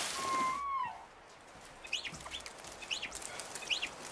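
A squeegee squeaks briefly on wet glass as a wash of noise dies away in the first second. From about two seconds in, a bird chirps several times over faint outdoor background.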